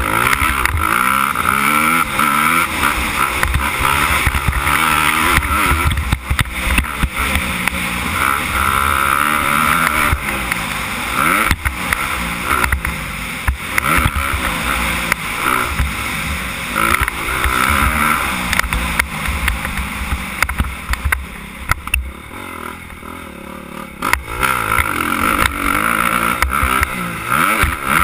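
Suzuki 250 motocross bike engine revving up and down as it is ridden hard around a dirt track, with wind rushing over the microphone. The engine eases off for a couple of seconds near the end, then picks up again.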